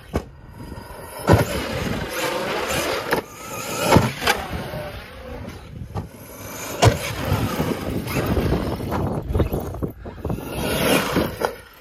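Traxxas Sledge RC monster truck's brushless electric motor whining, its pitch rising and falling as it is throttled on and off, with a few sharp knocks from the truck hitting the ground.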